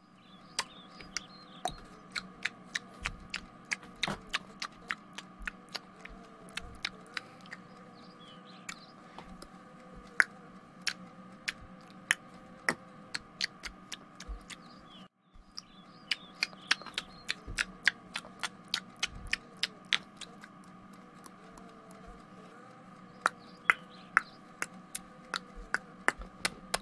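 Noisy eating sound effect: chewing with many sharp, irregular clicks over a steady low hum. The loop breaks off briefly about halfway and starts again.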